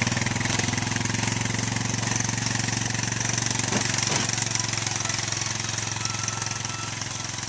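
An engine running steadily at an even speed, with a low rumbling pulse.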